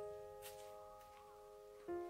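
Slow, soft instrumental music: single plucked or keyed notes ring out and fade, and a new note is struck near the end. There is a faint click about half a second in.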